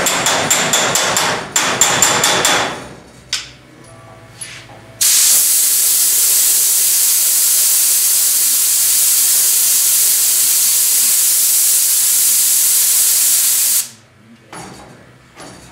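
A quick run of sharp clicks for the first couple of seconds. Then, about five seconds in, a compressed-air blow gun hisses steadily for about nine seconds, quenching the freshly heated spot on the steel panel to shrink it, and cuts off sharply.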